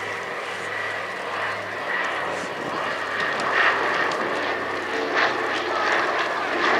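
Consolidated PBY-5A Catalina's twin Pratt & Whitney R-1830 Twin Wasp radial engines running steadily as the flying boat flies its display. The sound grows a little louder about halfway through.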